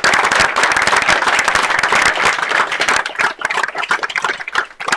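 A small group of people applauding: dense clapping that thins out and fades over the last couple of seconds.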